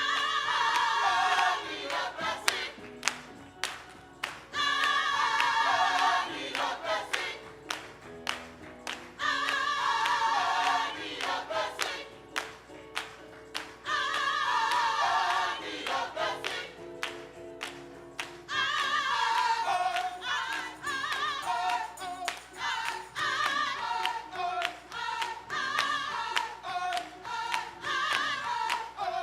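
A gospel choir singing phrases separated by short pauses, with sharp regular claps keeping the beat; after about two-thirds of the way in, the choir moves into a run of short repeated notes.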